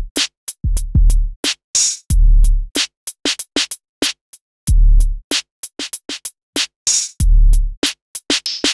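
Drum-kit samples played live by hand on the pads of a Native Instruments Maschine: a deep kick with a long low tail every second or two, and hi-hat and snare hits between, in a loose finger-drummed beat.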